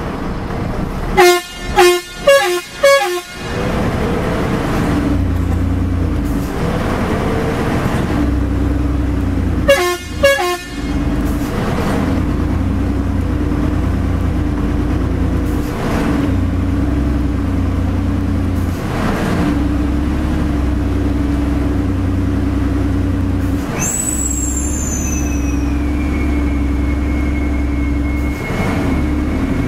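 Truck horn sounded in four short blasts in quick succession, then twice more about ten seconds later, over the Fuso self-loader truck's diesel engine running steadily at low speed. Near the end a high squeal falls in pitch and leaves a thin steady whine.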